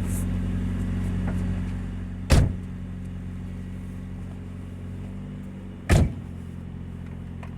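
2000 Nissan Altima's four-cylinder engine idling with a steady low exhaust drone from a leaking exhaust. Two sharp thumps cut in, about two seconds in and again near six seconds.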